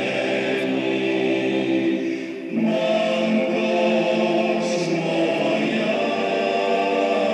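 A choir singing slow, long-held chords, with a brief dip and a change to a new chord about two and a half seconds in.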